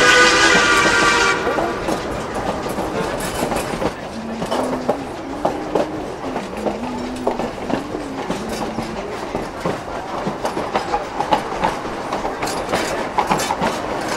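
A narrow gauge steam train's whistle sounds a multi-note chord that ends about a second in. The passenger cars' wheels then click and clatter over the rail joints as the train rolls slowly.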